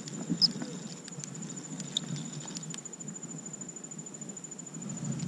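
A steady high-pitched insect trill, finely pulsed, with scattered small clicks and knocks during the first few seconds.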